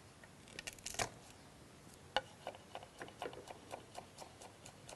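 Knife chopping garlic on a cutting board: a few quick knocks about a second in, then steady chopping strokes at about four a second.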